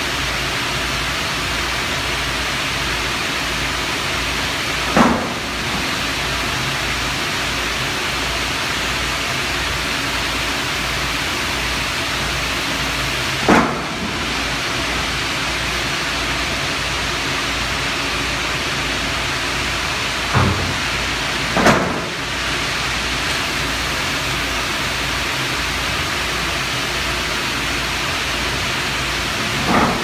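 Loud, steady noise of industrial plant machinery at a furnace-loading cell, with five brief sounds that drop quickly in pitch.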